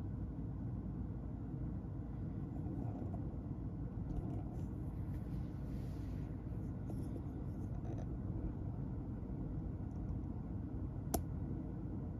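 A low steady rumble with faint soft rustling around the middle and a single sharp click about eleven seconds in.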